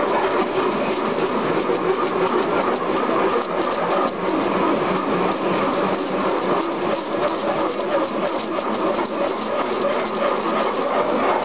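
Spindle of a Behringer-Vernet HBP CNC portal drilling machine boring into a steel rectangular tube: a steady, dense machining noise that keeps on without a break.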